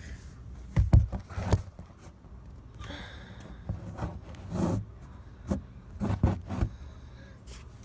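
Irregular knocks and clicks from a Kirby Generation 3 upright vacuum's parts being handled and fitted as it is put back to its normal upright setup, over a low steady hum.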